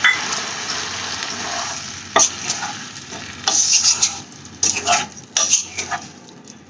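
Tamarind water sizzling as it hits the hot oil and masala around fried baby potatoes in a wok, the sizzle fading over the first couple of seconds. From about two seconds in, a spatula scrapes and stirs the potatoes around the wok.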